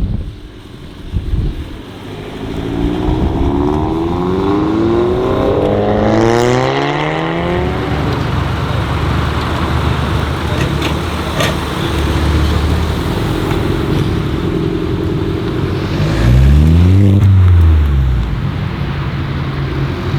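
Audi A3 Sportback with a custom RVS exhaust accelerating, its engine note climbing for several seconds. The engine then runs on steadily before a loud rev that climbs and falls straight back near the end.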